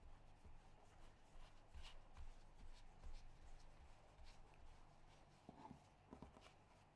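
Faint soft rubbing of a small rolling pin rolling out bread dough on a floured marble counter, with scattered light taps and a few soft knocks near the end.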